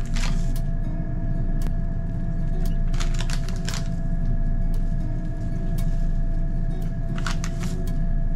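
A steady low machine hum with a faint constant whine above it. Over it come a few light ticks and rustles as seasoning salt is sprinkled by hand onto raw steaks, a small cluster about three seconds in and another near the end.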